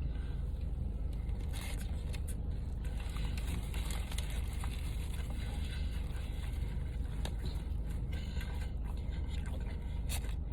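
Someone eating a crispy fried-chicken sandwich: scattered crunches and rustles of the bread and wrapper, over a steady low rumble.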